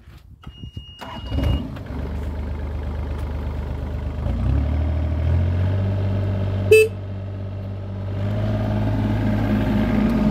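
Takeuchi TB28FR mini excavator's diesel engine starting: a short beep and about a second of cranking, then it catches and runs steadily. Its speed steps up about four seconds in and again near the end, with one sharp clank near the middle.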